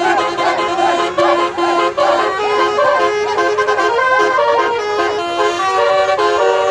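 Indonesian bus "telolet" multi-tone horn (a Basuri horn) playing a tune. It moves through stepped chords, with sliding, wavering notes in the first few seconds.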